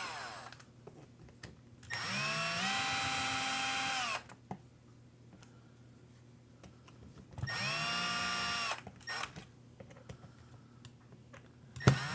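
Cordless power screwdriver spinning up, running steadily for a second or two and winding down, in repeated short runs as screws are driven or backed out. Light clicks of tools and parts come between the runs, and a sharp click is heard near the end just before the driver starts again.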